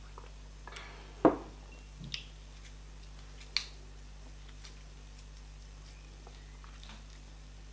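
Close-miked eating sounds: a loud wet mouth smack about a second in, then a few softer clicks and smacks from chewing, along with the soft squish of fingers working a lump of garri fufu.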